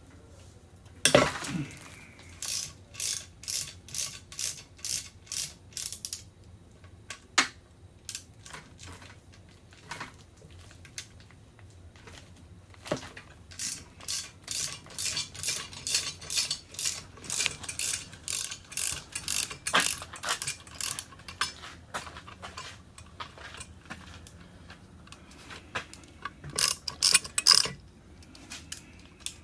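Ratchet wrench clicking in runs of back-and-forth strokes, about two to three clicks a second, as the bolts at a transmission's input shaft housing are loosened. A single sharp knock about a second in.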